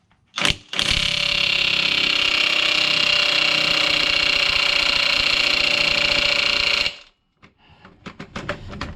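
DeWalt DCF899 18 V cordless impact wrench given a brief blip, then hammering steadily with a high whine for about six seconds before stopping abruptly, working on a stubborn crankshaft pulley bolt that is not coming loose. A quick run of light clicks follows near the end.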